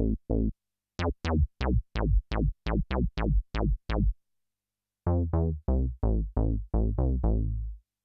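u-he Podolski virtual-analogue synthesizer playing bass presets as short sequenced note patterns, about three or four notes a second. Each note opens bright and quickly closes down to a deep tone. After a pause of about a second, a second pattern begins about five seconds in and ends on a longer held note.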